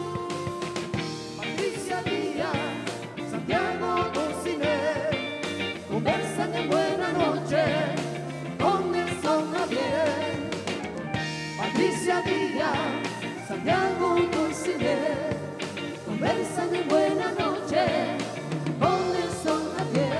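A live band playing a song, with several singers singing together over keyboard, electric guitar and drums; the voices come in about two seconds in.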